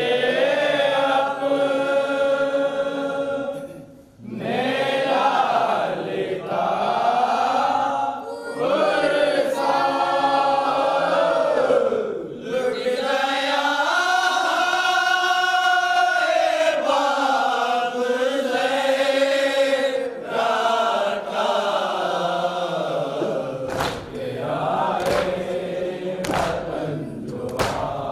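Men chanting a nauha, a Shia mourning lament, in unison with a lead reciter on a microphone, in long held melodic lines. Near the end, rhythmic chest-beating (matam) joins in, about one stroke a second.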